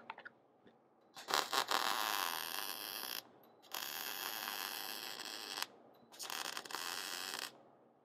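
MIG welder arc crackling and hissing in three short welds of about two seconds each, tack-welding a steel hinge bracket to a car door.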